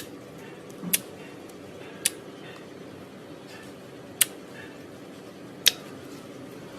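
Slime being played with, giving sharp crisp clicks and pops at uneven intervals, about five in all, the loudest near the end.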